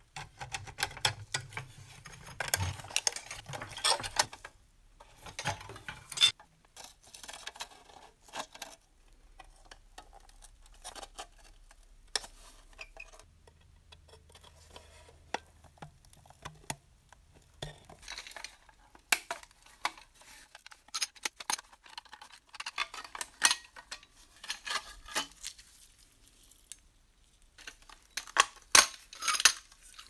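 Tinplate toy parts clinking and clicking as they are handled and taken apart, in scattered clusters of sharp metal clicks and knocks with quieter gaps between.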